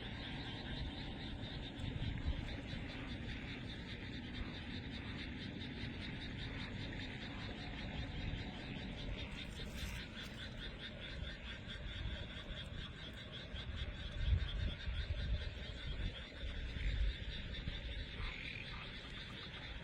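A dense, continuous chorus of frogs calling at night, many voices overlapping in a fast, even pulsing. Low rumbles rise under the chorus around two-thirds of the way through.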